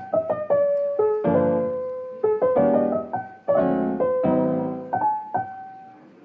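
Background music: a keyboard playing a light melody of single notes and chords, each struck and left to fade.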